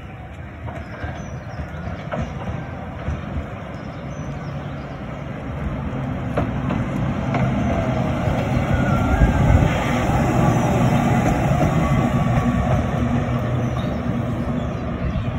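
Double-deck electric tram running along its track as it approaches and passes: wheels rumbling and clicking over the rails. The sound grows louder, peaking about nine to ten seconds in.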